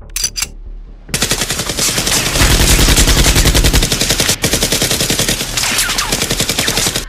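Rapid automatic machine-gun fire added as a sound effect over the Nerf blaster, in long continuous bursts starting about a second in, with a brief break partway through.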